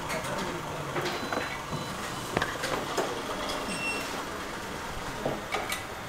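Busy workshop room noise: indistinct voices in the background with scattered small clicks and taps.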